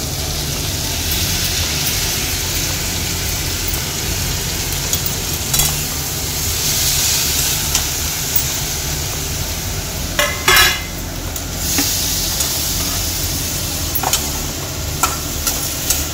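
Vegetables sizzling as they fry in oil in a steel kadai while a steel spatula stirs them, scraping and knocking against the pan now and then, loudest about ten seconds in.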